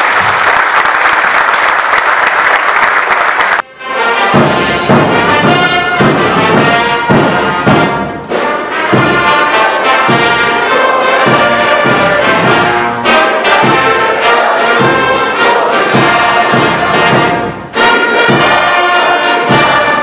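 Audience applauding, then a little under four seconds in, brass band music with trumpets and trombones starts and plays on.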